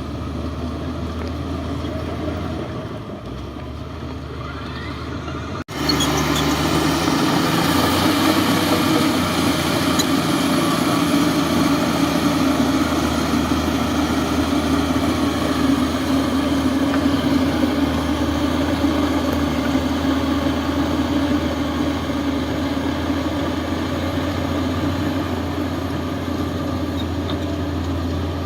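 Heavy earthmoving machine's diesel engine running steadily. About six seconds in, the sound breaks off for an instant and comes back louder and fuller.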